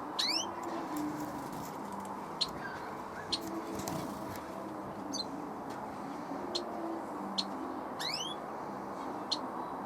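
Small birds calling, with short sharp high chirps every second or two and two quick sweeping calls, one near the start and one about eight seconds in, over a steady background hiss.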